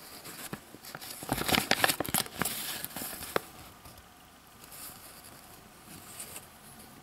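Paper instruction leaflet rustling and crinkling as it is handled and unfolded. A burst of crinkling starts about a second in, with one sharp crackle near the middle, then only soft rustles.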